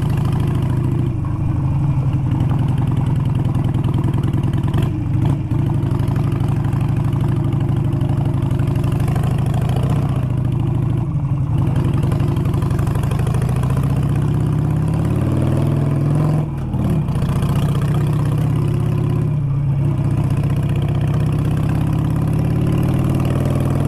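Harley-Davidson V-twin motorcycle engine running steadily under way, heard from on the bike, with its note shifting and briefly dipping about two-thirds through before settling again.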